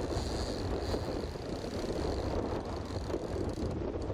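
Boat outboard motor running steadily, with wind on the microphone and waves washing in the wake.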